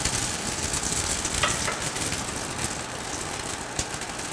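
Makki ki roti (corn flour flatbread) frying on a hot tawa, the freshly drizzled fat sizzling steadily around its edges with a few small crackles.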